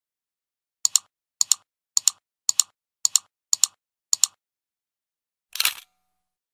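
A run of sharp double clicks, evenly spaced about two a second, eight in all, then after a pause one short hissing burst.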